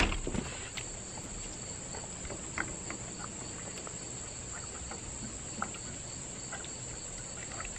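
Dogs licking peanut butter off a treat smeared on a glass door: faint wet licks and small clicks, with a couple of sharper ticks, over a steady high-pitched hiss.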